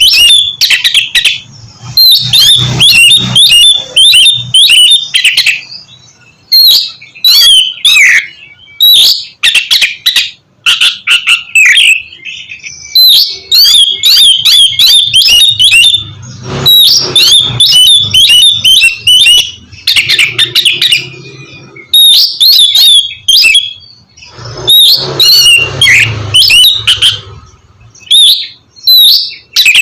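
Oriental magpie-robin singing loud, varied song: quick whistles and harsh chattering notes in phrases of a few seconds separated by short pauses.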